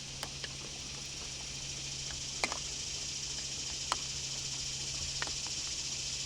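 A steady high insect chorus under a low steady hum, with a few sharp clicks, the clearest about two and a half and four seconds in.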